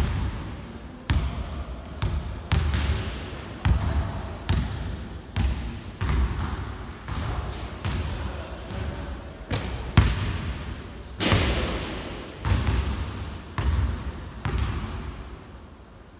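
A basketball bouncing on a hardwood gym court and striking the hoop during repeated shooting, a sharp thump every half second to a second, each ringing on in the echo of a large hall.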